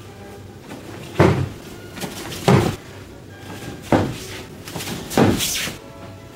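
Heavy thuds on a padded mat as an aikido partner is taken down and pinned in an ikkyo hold. There are four thuds, about a second and a quarter apart.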